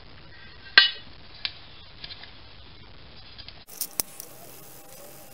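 A few light metallic clinks and taps of small metal objects being handled on a workbench, the loudest about a second in with a short ring, followed by scattered softer ticks.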